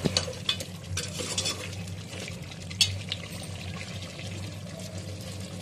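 Perforated metal skimmer stirring chicken frying in masala in an aluminium pot: scrapes and clinks against the pot, mostly in the first three seconds with the sharpest clink near three seconds in, over a steady sizzle. The masala is being fried down until the oil separates at the sides. A steady low hum runs underneath.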